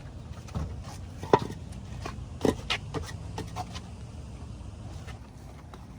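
Wheel blocks being set down against a rear tyre: a handful of hard knocks and clunks, the loudest about a second and a half in, over a low steady hum.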